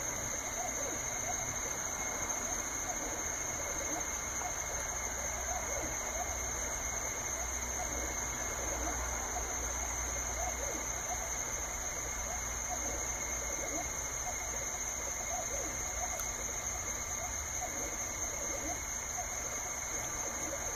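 Laser engraver running a burn: a steady fan hiss with a constant high whine, under short, rapidly shifting whirring notes from the stepper motors as the turntable and laser head step along.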